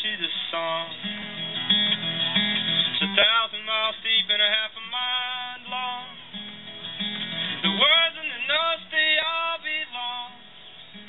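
Solo acoustic guitar playing an instrumental break: a picked melody over a repeating bass pattern, with some notes bending up and down in pitch.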